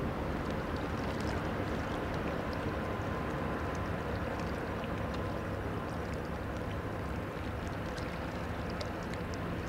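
Passing inland motor tanker barge: a steady low diesel drone with the rush of water along its hull.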